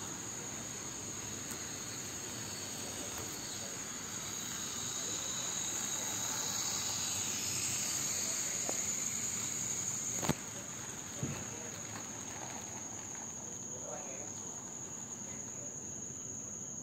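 Model train wagons rolling along the layout track, a steady running noise that swells as the tank wagons pass close by, with a sharp click about ten seconds in and a softer one a second later. A steady high-pitched whine sounds throughout.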